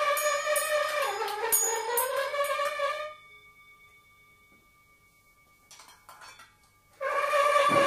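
Free-improvised music: a wind instrument holds a loud note that sags in pitch about a second in and climbs back, over light jingling percussion, then breaks off about three seconds in. After a near-silent pause with a faint steady tone and a few soft clicks, the held note comes back loudly near the end.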